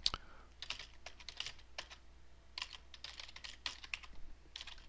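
Typing on a computer keyboard: quiet, irregular runs of key clicks with short pauses between them.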